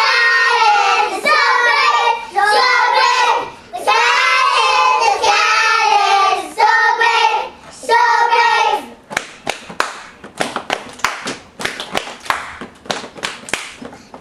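A group of young children singing a song together in phrases. About nine seconds in the singing stops and sharp hand claps follow, several a second, unevenly spaced.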